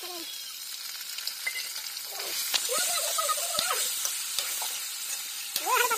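Chopped meat sizzling in hot oil in a steel kadai as it is tipped in and stirred with a steel ladle; the sizzle swells over the first few seconds and eases off toward the end.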